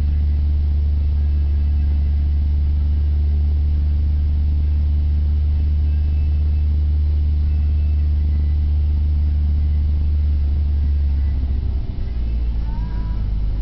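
A 2005 Dodge Neon SXT's 2.0 SOHC four-cylinder running through a Magnaflow cat-back exhaust, heard from inside the cabin while cruising. It gives a steady, very deep tone. Near the end the low note drops in level and wavers.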